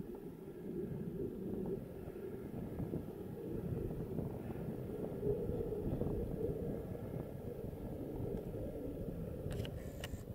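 Engine noise of a distant military jet on an airstrike run, a steady rumble.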